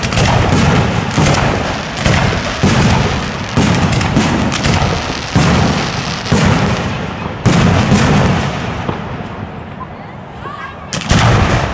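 Aerial fireworks bursting overhead, a loud bang about once a second, each trailing off in an echoing rumble. The bangs thin out after about eight seconds, with one more loud burst near the end.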